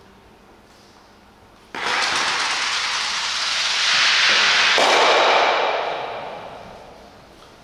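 An Eisstock (Bavarian curling stock) landing and sliding across the playing surface: a sudden start, a long grinding slide that grows louder, a sharp knock about three seconds in, then fading out as the stock slows and stops.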